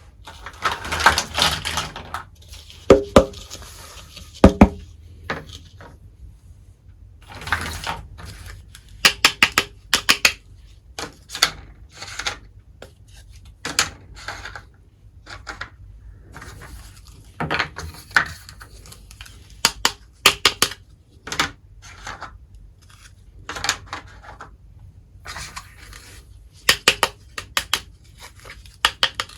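Miniature toy kitchenware clinking and tapping as small pieces are handled and set down, in quick clusters of sharp clicks, with a few short bouts of rustling.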